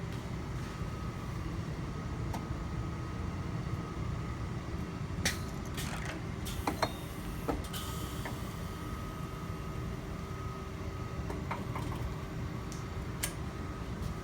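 Steady low machine hum of an automatic gaging station with a faint steady whine. A handful of sharp metallic clicks and clanks come about five to eight seconds in, and once more near the end.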